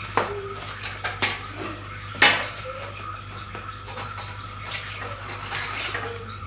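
Tire levers and the tire bead working against a bicycle wheel's rim as the tire is levered off: a few sharp clicks and clacks, the loudest about two seconds in, over a low steady hum.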